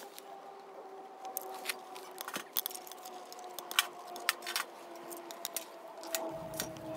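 Small wood fire of burning wooden chopsticks crackling with irregular sharp pops inside a homemade steel charcoal-canister stove. Split kindling sticks knock and clatter as they are laid into the fire opening in the second half. A faint steady tone runs underneath.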